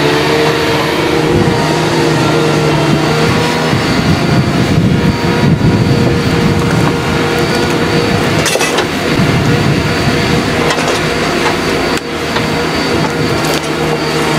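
Heavy diesel engine of a log loader running steadily under load as its grapple works logs onto a logging trailer, with a slight dip in level near the end.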